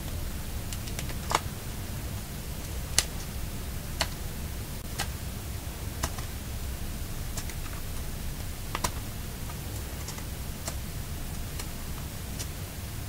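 Scattered light clicks and taps of a large sewing needle and paper pages being handled while stitching the signatures of a hand-bound book, over a steady low hum.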